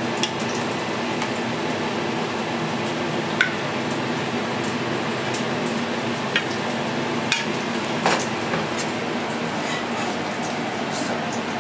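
A metal ladle scraping and clinking a few times against a stainless saucepan and a ceramic plate as sauce is spooned out, over a steady kitchen hiss and hum.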